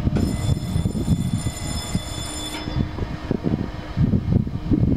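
ALCO 251 sixteen-cylinder diesel engine of a WDM-3A locomotive starting up, with an uneven low chugging. A high steady whine over it cuts off about halfway through.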